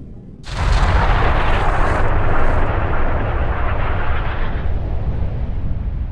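An artillery cannon firing once, about half a second in, with a sudden sharp blast. It is followed by a long low rolling echo that slowly fades.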